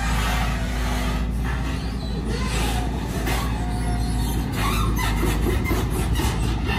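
Diesel engine of a Volvo EC210D long-reach excavator running steadily while the boom swings and the bucket digs.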